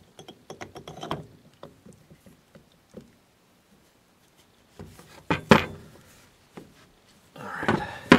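Handling noise from the metal housing of a Biax power scraper being fitted together over a wooden workbench. First a run of small metallic clicks, then a pause. Then a couple of sharp knocks about five seconds in, and a short scrape and another knock at the end.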